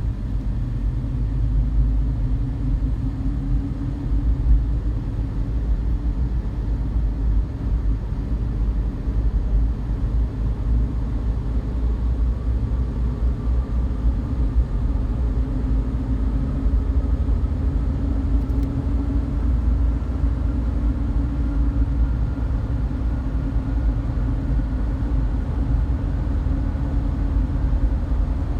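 Steady low rumble of vehicle road noise, with a faint whine that climbs slowly in pitch through the second half.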